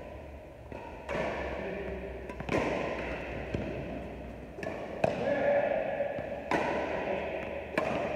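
Badminton rally: rackets strike the shuttlecock five times, sharp smacks one and a half to two and a half seconds apart, with some voices between them.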